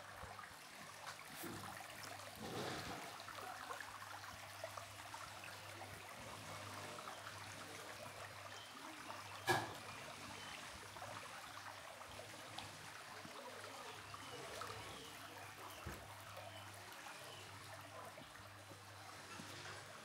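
Faint, steady trickle of running water, with a single sharp click about halfway through.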